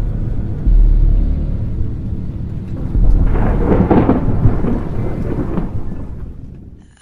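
Thunder rumbling, swelling to a louder crackling burst about three seconds in, then fading away near the end.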